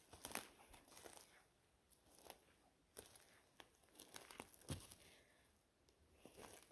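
Faint footsteps on the forest floor, with irregular crunches and snaps of dry litter and twigs underfoot.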